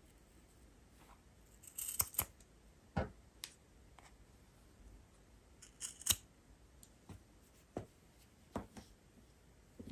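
Scissors snipping through thick 4 mm cotton macrame cord: a handful of separate sharp snips, the loudest about two seconds in and again about six seconds in.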